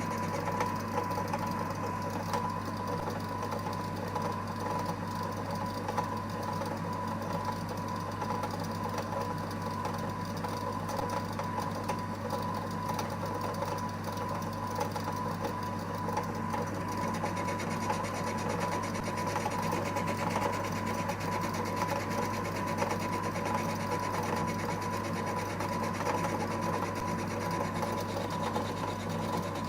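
Small benchtop lathe (EMCO Compact 5) running with its spindle turning: a steady motor hum with a constant whine, unchanging throughout.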